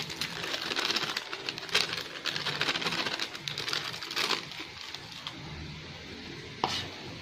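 A metal spoon clinking and scraping in a bowl while flour is mixed into grated vegetables, with many small irregular clicks and a few sharper knocks. The clicking thins out over the last couple of seconds, when the mixing is done by hand.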